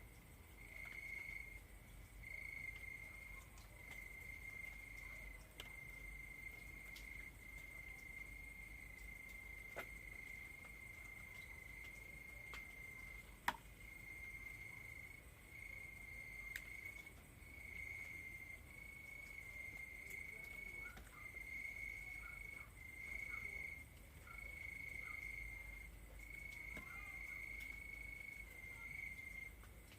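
Crickets trilling in one steady high-pitched tone, broken now and then by short pauses, with a few faint clicks and one sharp tick about halfway through.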